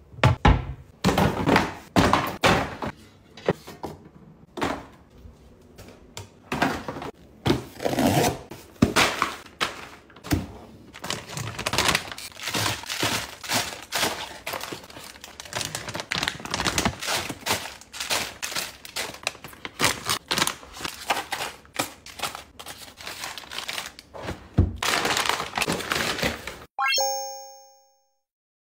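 Close-up handling sounds of a kitchen cabinet being stocked: a rapid run of knocks, clicks and thunks from the cabinet door and pull-out shelf and from packaged items being set in place, with plastic wrappers crinkling between them. Near the end, a short bright chime rings out, then the sound cuts off.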